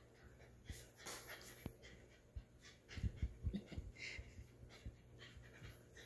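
A corgi tugging at a rubber chew toy: faint panting and snuffling, with scattered short clicks and scuffs of teeth on the toy.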